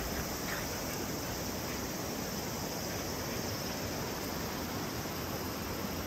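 Steady rush of flowing water: an even, unchanging hiss.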